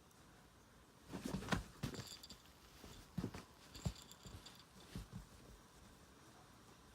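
Cats scuffling: a cluster of soft thumps and rustling starts about a second in, followed by scattered single thumps that die away about five seconds in.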